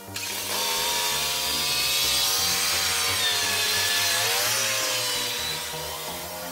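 Small petrol engine running close by at steady speed; its pitch dips briefly and recovers about four seconds in, then it eases off near the end.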